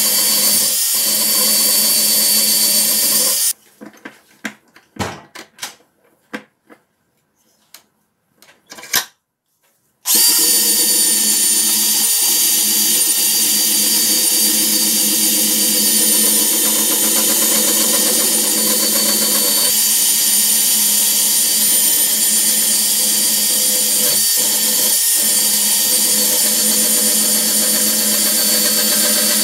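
Handheld rotary tool spinning a small steel wire-wheel brush against the handles of a pair of side cutters, scrubbing off rust. It runs steadily, stops about three seconds in for several seconds of scattered clicks and knocks, then starts again and runs steadily through the rest.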